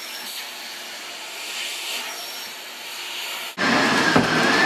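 Miele S8 Kona canister vacuum's suction hissing as it works over sofa upholstery. About three and a half seconds in, the sound cuts abruptly to a louder vacuum run with a steady high whine.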